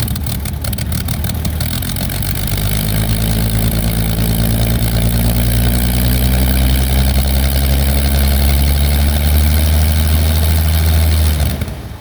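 Rolls-Royce Griffon V12 of a Supermarine Spitfire Mk XIV idling on the ground, rough and uneven for the first second or two, then running steadily a little faster. Near the end the engine is shut down and stops abruptly.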